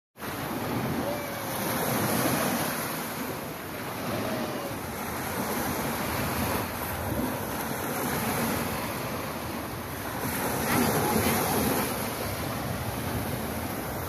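Small sea waves washing up and lapping on a sandy shore, a steady rush that swells and eases every few seconds, with wind on the microphone.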